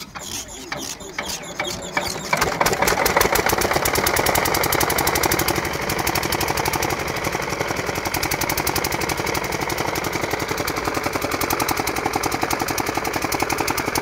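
8 HP single-cylinder diesel water-pump engine starting: its firing beats quicken over the first couple of seconds, then it settles into a loud, steady, fast knock as it runs.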